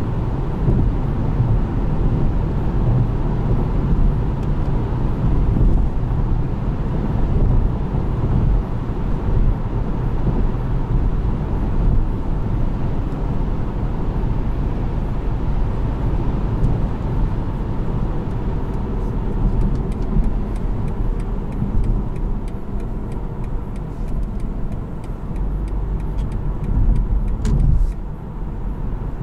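BMW 318i (G20) driving at cruising speed: steady road and tyre noise over a low rumble from its four-cylinder turbo petrol engine, with a few faint ticks in the last third.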